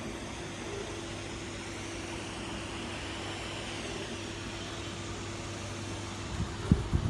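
Steady low mechanical hum with a faint hiss, then a few dull knocks about six and a half seconds in.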